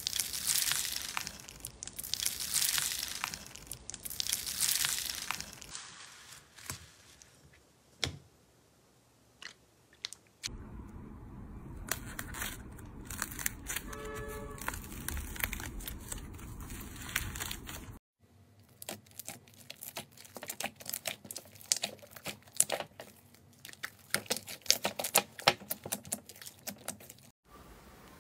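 A hand pressing and rubbing foam-bead slime (floam), giving three crunchy, crinkling swishes about two seconds apart. Later comes a steady soft hiss, then a long run of sharp crackling clicks as slime is worked.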